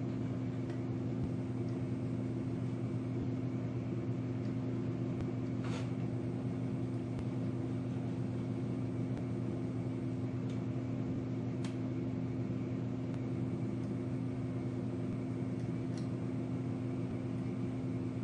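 Steady machine hum, like a fan or air handler running, with a few faint light clicks at wide intervals.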